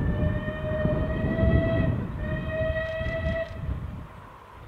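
Steam whistle of a Bulleid Battle of Britain class Pacific locomotive, sounded in two blasts, the first about two seconds long and the second shorter, its pitch edging up slightly. A low rumble runs underneath and fades near the end.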